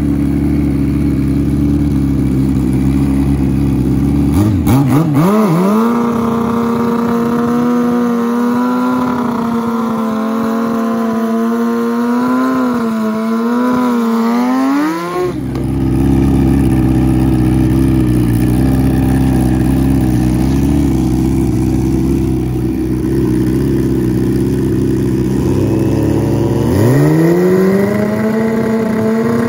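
A low, steady engine drone, then a drag-racing motorcycle launching about four seconds in. Its pitch climbs steeply and holds high with short dips, like gear changes, for about ten seconds, then cuts off suddenly. The low drone returns, and another engine revs up steeply near the end.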